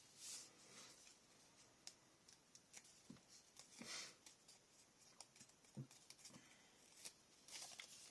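Faint, scattered rustles and small clicks of paper and paper washi tape being handled.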